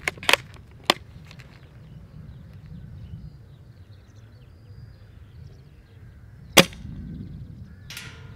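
Novritsch SSG96 spring-powered bolt-action airsoft sniper rifle firing a single shot, a sharp snap about two-thirds of the way in, with a few lighter clicks near the start and a short rattle near the end. Wind rumbles on the microphone throughout.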